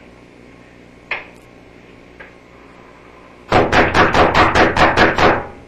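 One sharp knock about a second in, then a fast run of about a dozen loud knocks on a hard surface, some six a second, lasting about two seconds.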